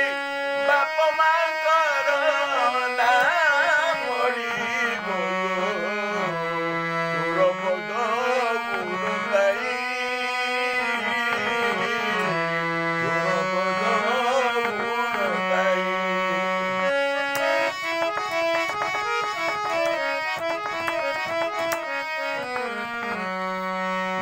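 Harmonium playing an Odia folk-song (palli geet) melody in steady, stepwise notes, with a man's singing voice joining in during the first few seconds.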